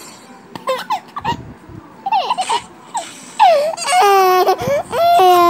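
Young child crying: short wavering squeals, then two long, loud wails near the end.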